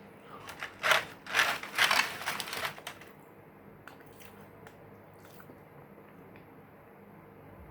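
Crisp Butter Ring butter cookies being bitten and crunched close to the microphone, a burst of loud crackly crunches in the first three seconds, then only a few faint clicks.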